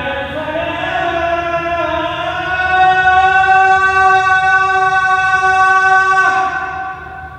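A man's voice chanting the Muslim call to prayer (adhan), one long held note that stops sharply about six seconds in and rings on briefly in the stone abbey's echo.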